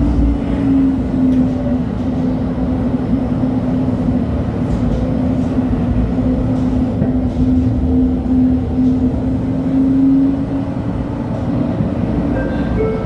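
LHB TW2000 light rail car running on track: a steady tone from the drive over the continuous rumble of wheels on rails. The tone sinks slightly in pitch in the first second, then holds and fades about ten and a half seconds in.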